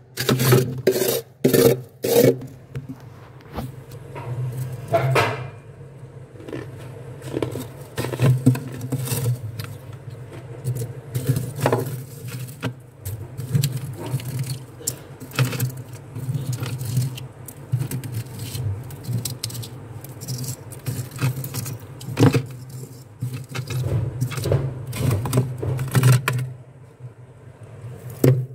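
Freezer frost being scraped off the freezer walls with a metal spatula, with crunching scrapes. The strokes come quickly and evenly for the first couple of seconds, then irregularly, over a low steady hum.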